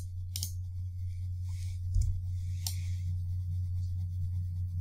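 A few sharp computer mouse clicks, three of them spread over a few seconds, over a steady low hum.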